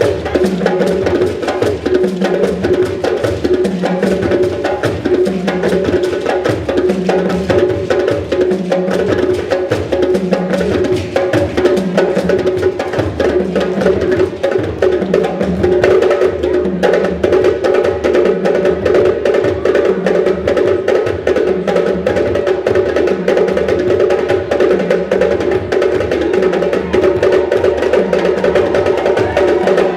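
Music with percussion and a steady beat.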